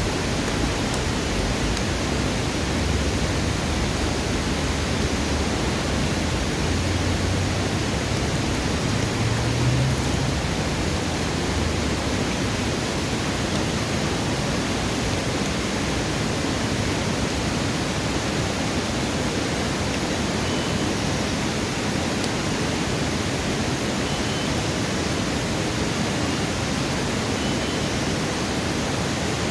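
Steady rushing of flowing river water, with a low rumble underneath for about the first ten seconds.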